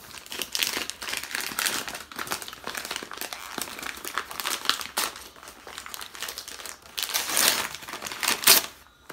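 Gift-wrapping paper crinkling and rustling as a small wrapped box is torn open by hand, loudest in a flurry about two-thirds of the way through.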